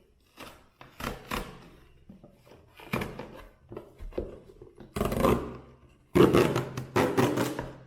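A package being torn open by hand: irregular rips and rustles of packaging. The longest and loudest tear starts about six seconds in.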